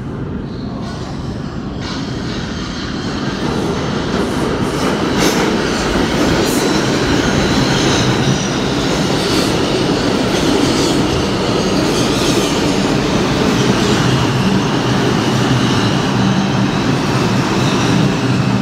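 R142 subway train pulling into an underground station: a steady rumble of steel wheels on rail that grows louder over the first few seconds and then holds, with short high clicks and faint wheel squeal.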